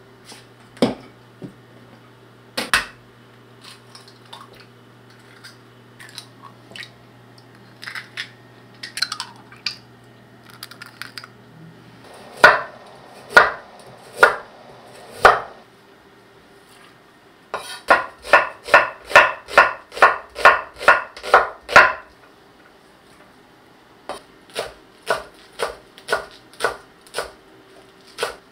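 Kitchen knife chopping vegetables on a wooden cutting board. It starts with four heavy single cuts through a carrot about a second apart, then a fast run of about four chops a second, then steadier chopping of green onions at about two a second. Before the chopping there are scattered light clicks and knocks over a low steady hum.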